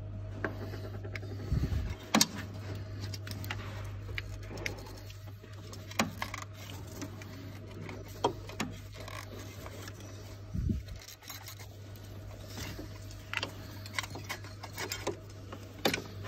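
Scattered small metallic clicks and knocks of gloved hands and tools working the loosened timing belt and tensioner pulley of a VW 2.0 TDI diesel engine, with two duller thumps about a second and a half and ten seconds in, over a steady low hum.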